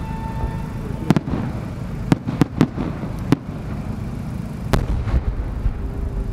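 Large aerial firework shells bursting: about six sharp booms over some four seconds, with a steady whistle from a rising shell ending in the first second.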